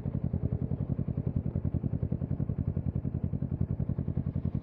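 Kawasaki Z650's parallel-twin engine running at a steady cruising speed through its Yoshimura exhaust, with an even, rapid pulsing throb that holds constant.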